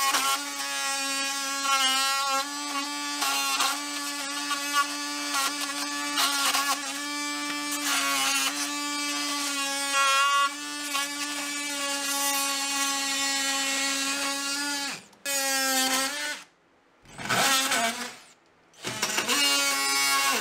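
Craftsman cordless oscillating multi-tool running, its blade buzzing as it trims torn drywall edges and staples along a wall stud. One steady high whine with brief dips where the blade bites, stopping about fifteen seconds in, then two short silences before it runs again near the end.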